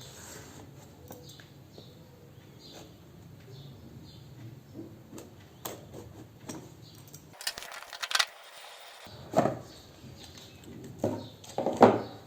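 A smartphone's cardboard retail box being opened and handled: soft taps, scrapes and rustles, with a few louder knocks near the end.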